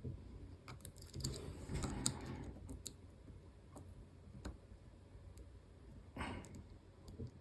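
Faint clicks and light scraping from a lock pick and tension tool working the spring-loaded sliders of an EVVA ICS cylinder, with scattered sharp ticks and short scrapes about a second in and again near the end.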